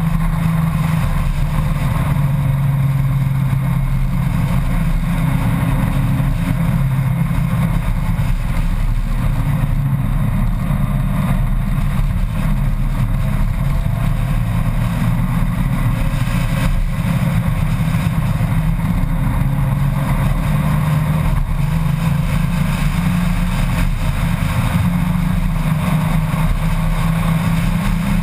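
Honda Gold Wing motorcycle cruising at a steady road speed: a constant engine drone mixed with the rush of wind over the bike-mounted camera.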